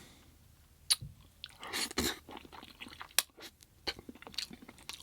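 A person chewing food close to the microphone, with scattered sharp mouth clicks and crunches, the strongest about one, two and three seconds in.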